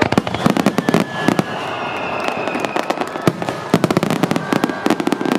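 Fireworks finale barrage: dense rapid crackling and popping from many small bursts at once, easing in the middle to a rushing hiss with a high falling whistle, then crackling densely again near the end.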